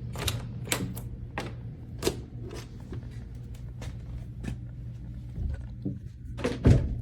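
Irregular sharp clicks and knocks, about a dozen, over a steady low hum, with a louder knock near the end.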